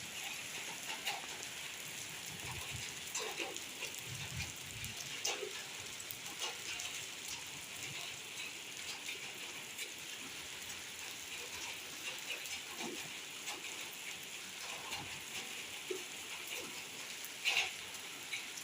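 Steady rain falling, an even hiss with scattered individual drops striking close by, and one louder drop hit near the end.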